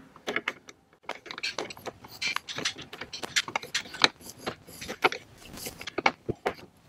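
Screwdriver turned by hand in a bolt, setting a threaded molly-type insert in a kayak's plastic hull: irregular metallic clicks and scrapes, a few a second, as the tip works in the screw head.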